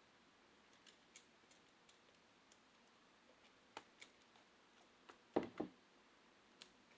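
Faint, scattered small clicks and taps of tools and tablet parts being handled, with a louder double knock about five and a half seconds in.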